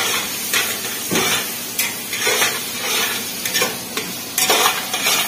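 A long metal ladle stirring boiled kidney beans into thick, sizzling onion-tomato masala in a metal pot, scraping against the pot about twice a second over a steady frying hiss.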